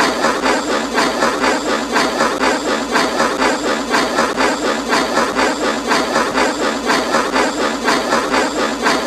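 Steam locomotive sound effect: steady, rhythmic chuffing of exhaust steam, about two to three puffs a second, with no whistle.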